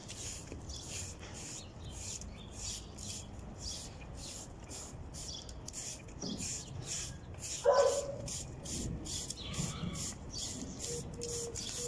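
Broom sweeping across wet concrete pavement, a steady run of short scraping strokes at about two to three a second. A brief louder call cuts in about eight seconds in.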